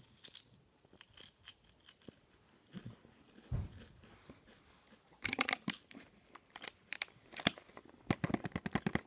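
Pringles potato crisps crunching as they are chewed close to the microphone, in several bouts of quick crunches.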